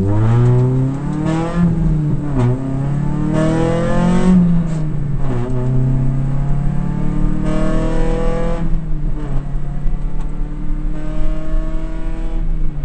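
Rally car engine heard from inside the cabin under hard driving: the revs climb, drop sharply as a gear is changed about two seconds in, climb again, then fall back. It runs at steadier revs afterwards, with another short rise past the middle.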